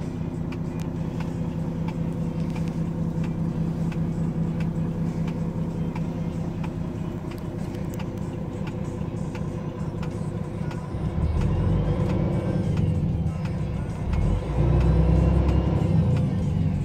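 Volvo FM13 truck's inline-six diesel engine running at idle, heard from inside the cab, with two louder, deeper stretches about eleven and fourteen and a half seconds in as the engine is revved.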